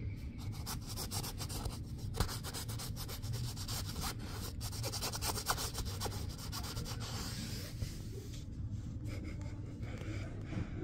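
Rubbing and scratching on the thin nylon fabric of a pop-up play cube, with kitten paws pressing at it from inside and a finger from outside. Quick scratchy strokes, thinning out after about seven seconds.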